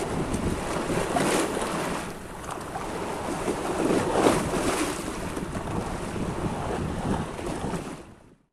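Choppy water splashing and sloshing close to the microphone, with wind buffeting it. The splashes surge about a second and a half in and again around four seconds in, then the sound fades out near the end.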